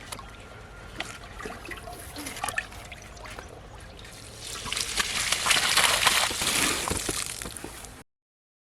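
Water splashing and trickling with a few small clicks, swelling louder about halfway through, then the sound cuts off abruptly near the end.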